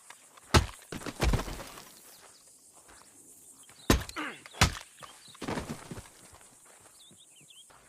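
Pistol-whipping combat sound effect: a series of sharp hits and thuds of blows landing, in two pairs about a second into the sound and about four seconds in, with lighter knocks between.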